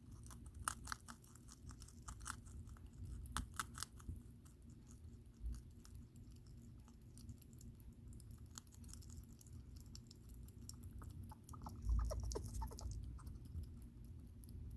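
Baby hedgehog (hoglet) chirping: an irregular run of short, faint, clicky chirps, the loudest a little after three seconds in. Chirping like this is the hoglet's hunger call.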